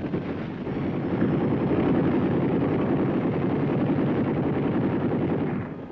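UH-1 'Huey' helicopter in flight: the steady rush of the turbine and rotor, with a fast, even beat from the blades, cutting off shortly before the end.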